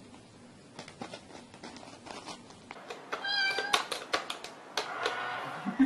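Cat and toy cat coin bank: after faint taps, a short meow about three seconds in, then a quick run of clicks and taps as the cat paws at the box. More meowing comes near the end.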